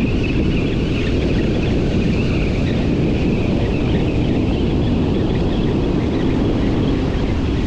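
Steady wind buffeting the microphone over the rush of surf breaking on the beach.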